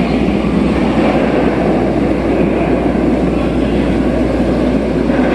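Steady rumble of a moving train car, heard from on board.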